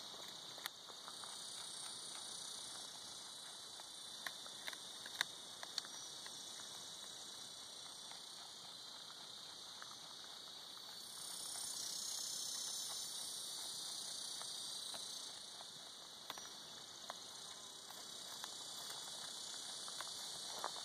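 Steady high buzzing of insects, louder for a few seconds about halfway through, with a handful of sharp clicks in the first six seconds from a jackrabbit crunching on a prickly pear pad.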